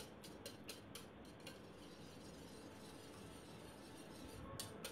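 Wire whisk beating a runny egg-and-milk batter in a shallow bowl: faint, rhythmic clicking of the whisk against the bowl, about four or five strokes a second, growing clearer near the end.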